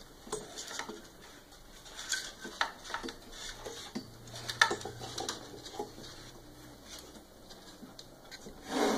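Motor wires being pulled and threaded through a 3D printer's frame: cables rubbing and scraping against the frame, with scattered light clicks and taps. A short, louder noise comes near the end.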